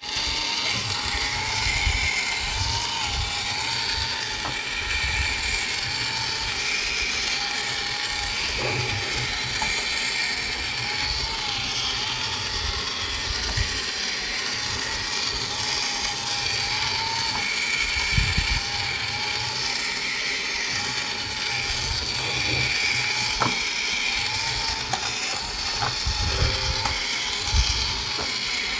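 Battery-operated bump-and-go toy car's small electric motor and plastic gearbox whirring steadily as it drives, the pitch wavering up and down every couple of seconds, with a few short knocks.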